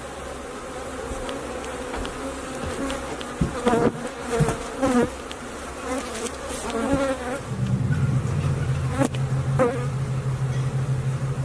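Honeybees from an opened feral hive buzzing in a dense swarm close to the microphone. A low steady hum joins in about seven seconds in.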